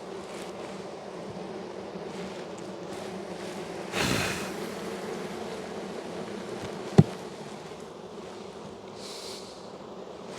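Steady hum of a large colony of honey bees buzzing around an open hive. A brief rustling noise comes about 4 seconds in, and a single sharp click about two-thirds of the way through.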